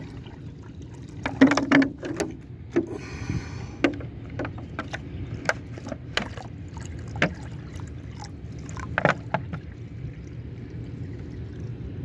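Water poured from a large plastic bottle into a clear plastic tub packed with stones, splashing in irregular plops and drips that thin out near the end.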